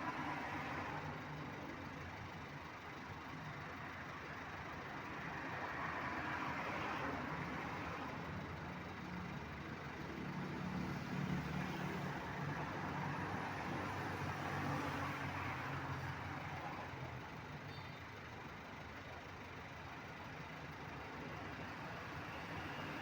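Road traffic: vehicles pass one after another, their noise swelling and fading. A low engine hum grows loudest about halfway through.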